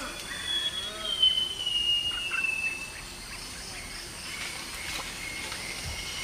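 Tropical rainforest ambience: a steady high insect drone, short chirping bird calls in the first second, and a long whistle gliding slowly downward that fades out about three seconds in.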